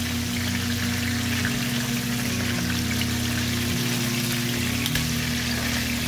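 Pork chops frying in hot oil in a skillet: a steady crackling sizzle, with a few small pops as the chops are turned over with tongs.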